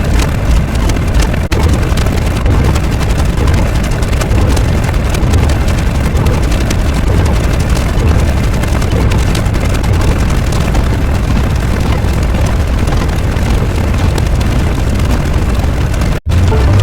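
Loud, continuous rumbling noise, heaviest in the low end, that cuts out for a split second near the end.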